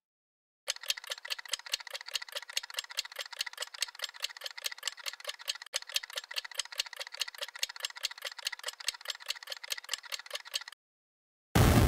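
Quiz thinking-time sound effect: a fast, even ticking, about five ticks a second, for about ten seconds. It stops, and near the end a loud hit rings down.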